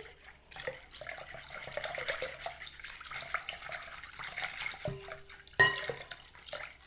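Water pouring in a thin stream into a glass bowl of liquid while a whisk stirs it. A single sharp, ringing clink of glass about five and a half seconds in.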